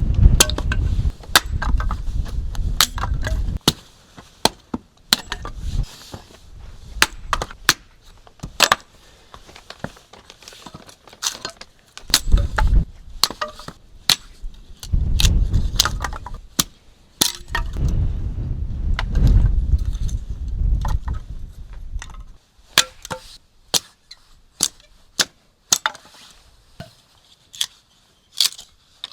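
Campfire crackling, with many sharp irregular pops and snaps, while gusts of wind buffet the microphone with a low rumble, strongest early on and in the middle.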